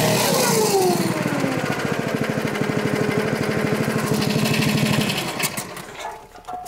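Log splitter's small gas engine dropping in pitch as it is throttled down, then idling with an even putt-putt before dying away about five seconds in as it is shut off.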